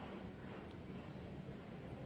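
Faint steady room noise with a low hum: a pause between phrases of a sermon.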